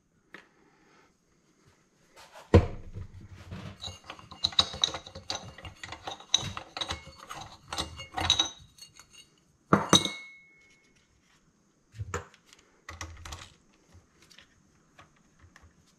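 Metal engine parts and hand tools handled and set down on a wooden workbench: a run of clinks and clatters, with a heavy knock about two and a half seconds in and a sharp metallic clank near ten seconds that rings briefly.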